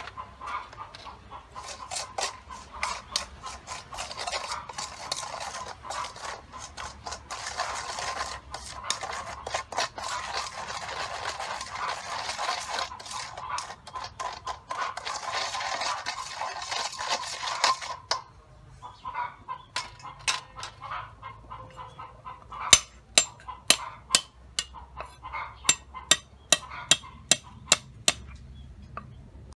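Metal spoon stirring and scraping a sauce around a stainless steel mixing bowl, clinking against the sides for about eighteen seconds. Near the end, a quick run of sharp knife chops on a wooden cutting board as garlic is cut.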